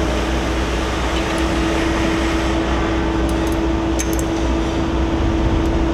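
Steady machinery drone with a constant low hum and a held mid-pitched tone. A few light metallic clicks come about three and four seconds in, from a wrench on the gland nuts of a pump's mechanical seal.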